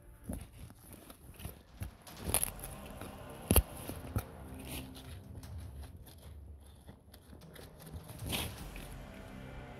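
A gloved hand scraping and pushing through loose forest soil and dry dead leaves, making rustling with a few sharper knocks and crackles. The loudest knock comes a little over three and a half seconds in.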